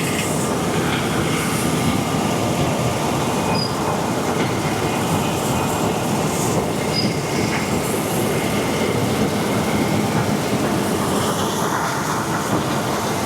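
John Deere S790 combine running at work harvesting wheat, heard up close: a loud, steady machinery noise of engine, threshing and straw chopper.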